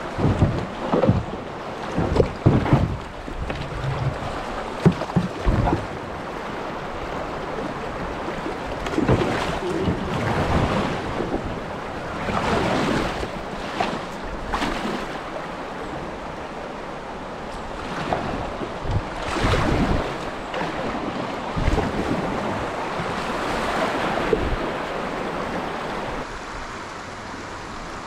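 Water splashing and washing around a kayak on a shallow river, with wind buffeting the microphone. Uneven knocks and thumps come in the first few seconds, then the water noise swells and fades twice.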